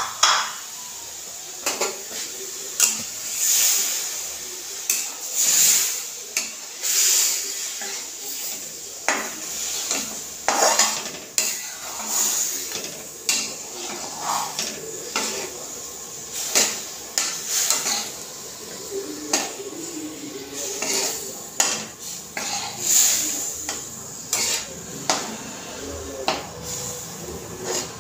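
Metal spatula scraping and clinking irregularly against a metal kadhai while lumps of jaggery are stirred to melt in a little water.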